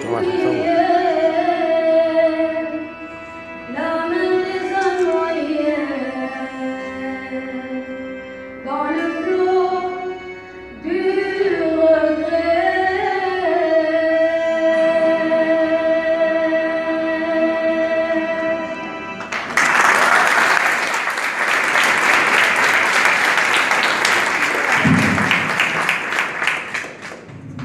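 A solo voice sings a slow song through a microphone and ends on a long held note. About twenty seconds in, the audience breaks into applause, which runs until just before the end.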